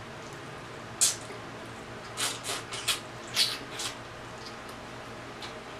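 Close-miked mouth sounds of eating rotisserie chicken neck by hand: short wet smacks and sucking, once about a second in and then a quick run of them between two and four seconds in.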